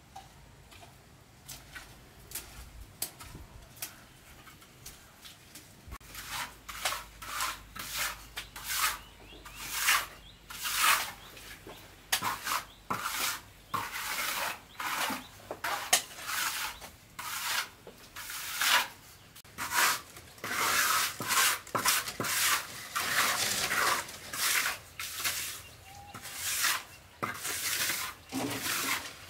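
Steel mason's trowel scraping and smoothing a wet cement floor in repeated short, rasping strokes, starting about six seconds in after a quiet opening.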